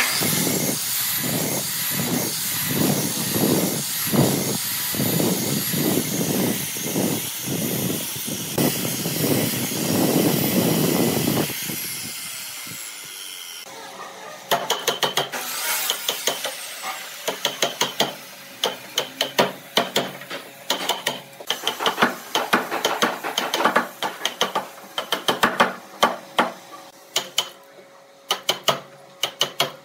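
Sliding miter saw running and cutting a row of closely spaced kerfs into a wooden chair arm, about two cuts a second, then winding down about halfway through. After that, a wood chisel is struck over and over to chop out the waste between the kerfs: rapid, sharp, irregular knocks.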